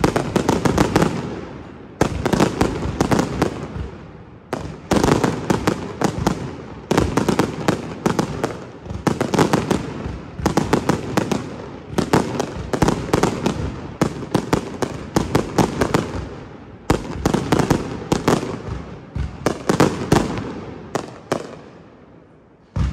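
Pirotecnia Tomás aerial firework display: clusters of rapid crackling bangs every one to two seconds, each ringing out in echoes. It thins out near the end before one last sharp bang.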